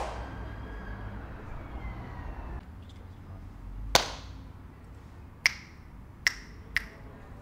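Finger snaps: four sharp, single clicks with a short room echo, the first about four seconds in and the other three following a second or less apart, over a low steady hum.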